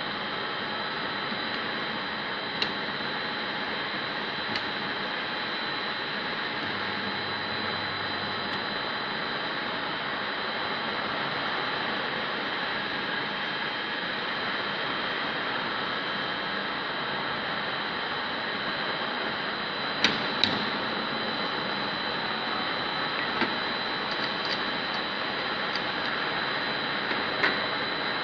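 Small wire butt welding machine humming steadily, with a few sharp metallic clicks from its clamps and lever as wire is set and welded; the loudest clicks come as a close pair about twenty seconds in.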